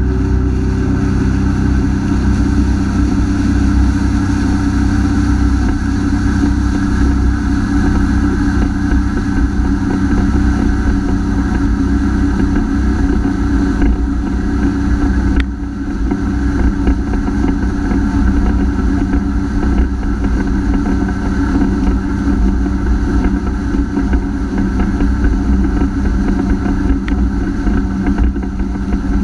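Honda AquaTrax F-12X jet ski's turbocharged four-cylinder engine running steadily under way, with a brief dip in level about halfway through.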